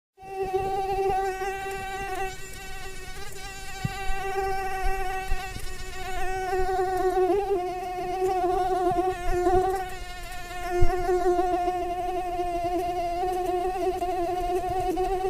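Mosquito in flight: a continuous, steady whine from its beating wings that wavers slightly in pitch, with a brief click about two-thirds of the way through.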